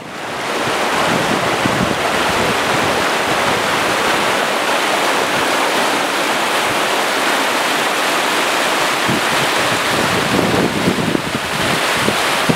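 Whitewater rapids on a shallow, rocky river, the water rushing steadily over and between boulders. The sound fades in at the start, then holds steady.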